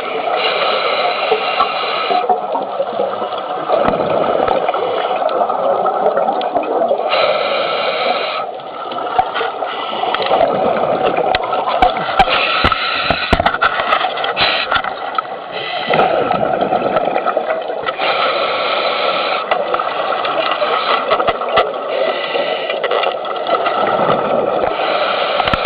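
Underwater recording: steady muffled rushing of water on the camera housing, with a burst of bubbling hiss every five or six seconds, a scuba diver's regulator exhaling, and a few sharp clicks.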